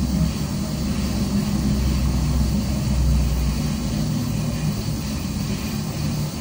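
Steady low mechanical rumble, like a motor or engine running, with no breaks or changes.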